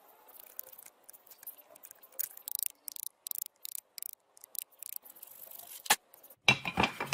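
Workshop tool work on metal: a run of short, sharp clicks and scrapes, a sharp knock just before six seconds in, then louder, fuller tool noise near the end.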